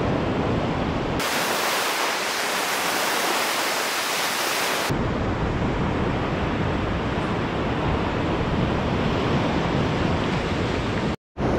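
Ocean surf breaking and washing up a sandy beach, a steady rush of noise. For a few seconds near the start it turns into a brighter, thinner hiss, and it cuts out for a moment near the end.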